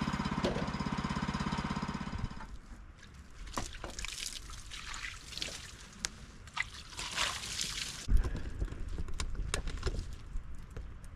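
Sawmill's small gasoline engine running at a steady, even pulse, then shut off about two seconds in. Afterwards, scattered clicks, light rustling and hissing.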